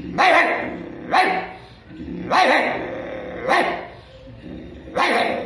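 A man imitating a full-grown dog's barking with his voice: five barks about a second apart.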